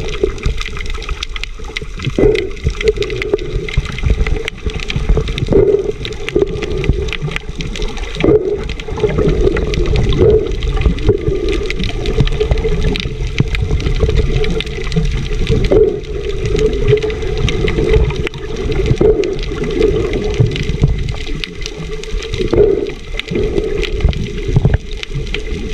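Water sloshing and gurgling as heard by a camera held underwater, a muffled churning that swells and ebbs irregularly.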